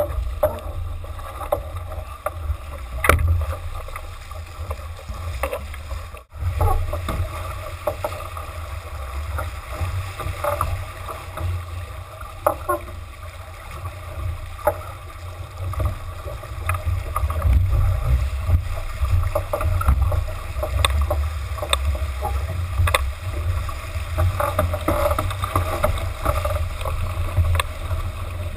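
Wind buffeting the microphone and water rushing along the hull of a J/80 sailboat heeled over and sailing fast through chop. Scattered short knocks and clicks come from the boat, and the sound cuts out briefly about six seconds in.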